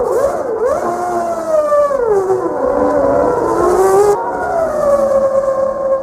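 Formula One car engine at high revs, its pitch swooping up and down through gear changes, dropping around the middle as the car slows, then holding steady near the end.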